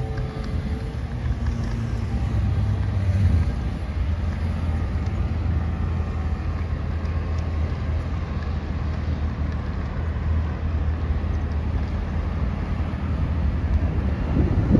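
Steady low rumble of city road traffic, with a brief louder swell near the end.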